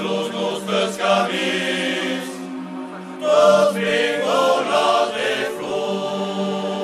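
Music of voices singing together over a sustained low note, with a louder phrase a little after the middle.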